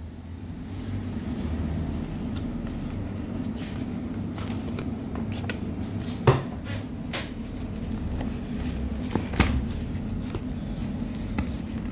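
Paper leaflets and manuals being handled and shuffled by hand, rustling in short scrapes, with two sharper knocks about six and nine seconds in, over a steady low hum.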